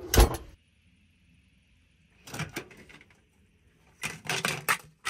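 Microwave door opening and stacked plastic food containers falling out, clattering onto the floor in a quick run of knocks about four seconds in. There is one sharp knock right at the start.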